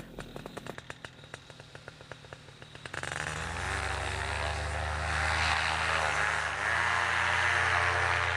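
Paramotor engine and propeller running at full throttle for a running take-off, steady with a brief dip in pitch near the end. It comes in about three seconds in, after faint quick ticking.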